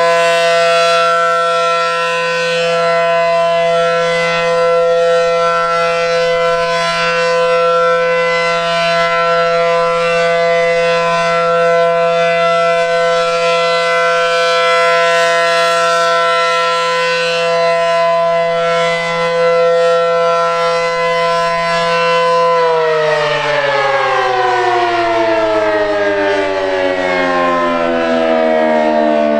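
ACA Allertor 125 rotating outdoor warning siren sounding a steady tone that swells and fades slightly every few seconds. About 23 seconds in it winds down, its pitch falling.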